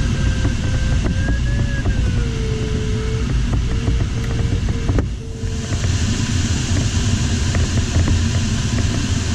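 Airflow noise in an LS4 sailplane's cockpit, with the audio variometer's thin tone wavering in pitch and then cutting out a little over halfway through. From about then the rush of air gets brighter and stays so.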